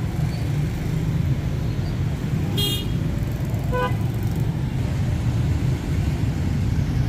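Steady low rumble of street traffic with a brief vehicle horn toot about four seconds in, and a short high-pitched tone just before it.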